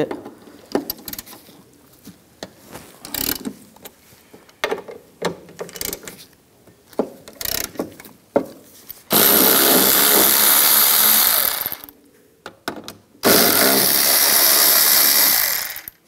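Hand ratchet with an M8 triple-square socket loosening the two door-latch bolts. Scattered clicks come first, then two long, loud spells of rapid ratcheting, one for each bolt as it spins out.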